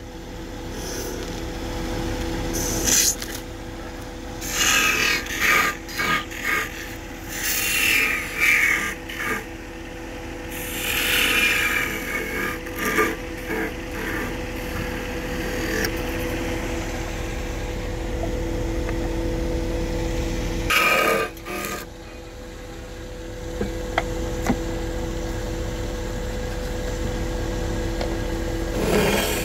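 Wood lathe running with a steady motor hum while a turning tool scrapes the spinning wood in repeated bursts, several in the first half and one more about 21 seconds in.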